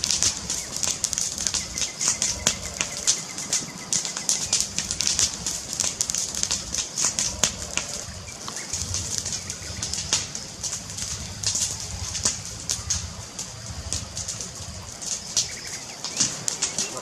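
Wood fire crackling: dense, irregular pops and snaps over a steady hiss, with a low rumble underneath.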